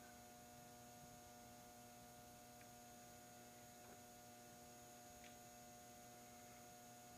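Near silence with a steady electrical mains hum, and a few faint light clicks.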